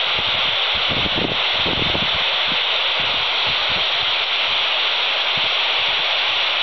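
Quansheng TG-UV2 handheld radio hissing with its squelch open on 145.800 MHz, the ISS downlink frequency: steady FM static with no station coming through. Gusts of wind on the microphone rumble underneath.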